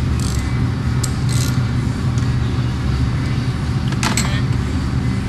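A steady low hum, with a few short clicks and rustles from hands working wiring and connectors by the fuse box.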